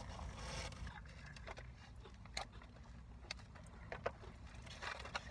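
Steady low rumble inside a car, with soft chewing and handling noises and a few sharp clicks as fried food is picked apart by hand.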